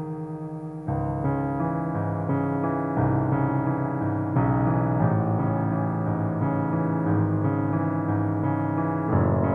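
Solo piano playing a slow, gentle improvisation, with sustained chords changing about every second or so.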